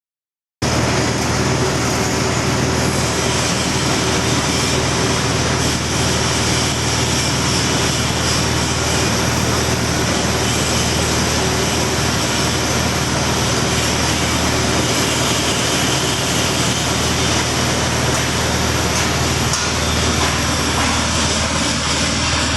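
Peanut shelling machine running: a steady motor hum under a dense, even rattling noise. It cuts in suddenly about half a second in.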